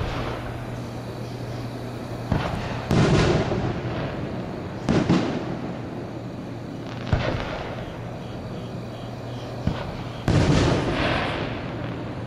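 Consumer (1.3G) aerial fireworks shells bursting: about six separate bangs a second or more apart, the loudest ones trailing off over a second or so.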